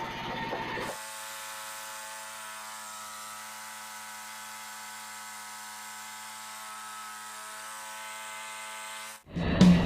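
A steady machine hum holding one pitch, which cuts off near the end as guitar music begins.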